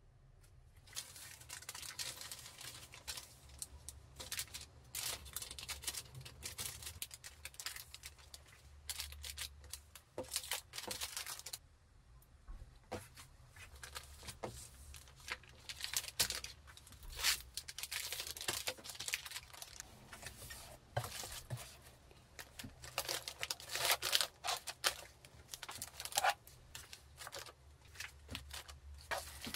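Clear plastic packaging bags and bubble wrap rustling and crinkling under hands as an order is packed, in many short bursts, with a brief lull about twelve seconds in.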